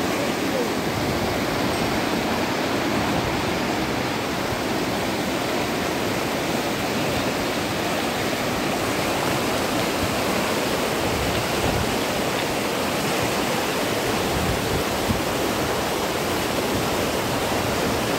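Floodwater of a swollen river rushing and churning in turbulent whitewater: a steady, unbroken roar of water.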